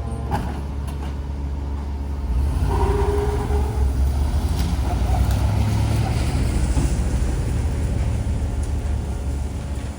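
A truck engine running with a deep, steady rumble that gets louder about two seconds in.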